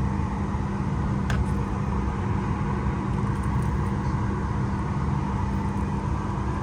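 Steady low hum of a Boeing 737 MAX 8 cabin parked at the gate: the ventilation air and a constant drone with a single light click about a second in.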